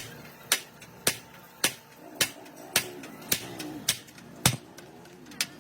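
Hammer blows on metal at a steady pace, about two strikes a second, each a sharp ringing knock.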